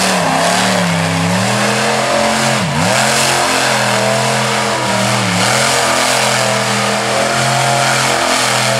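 Samson monster truck's engine running at high revs as the truck spins in the dirt, its pitch dipping and climbing back about three seconds in and again near five seconds in.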